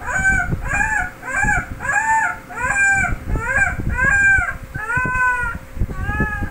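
Six-week-old puppy, sick with parvovirus, crying over and over in short high whimpering yelps, about two a second, the last couple drawn out longer.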